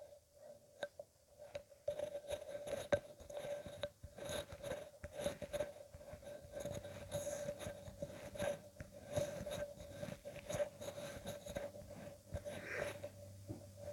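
Irregular small clicks and light taps of something being handled close by, over a steady faint hum. A lower hum joins about seven seconds in.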